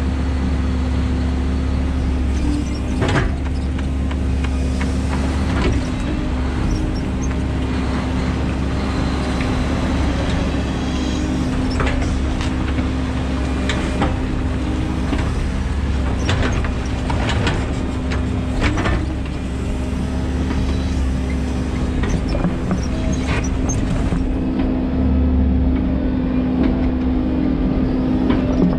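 A 13-tonne excavator's diesel engine running steadily under hydraulic load, with a low rumble and a steady hum. Several sharp clanks and knocks from the steel bucket and the muck are heard as it tips soil into a tipper lorry and digs the ground.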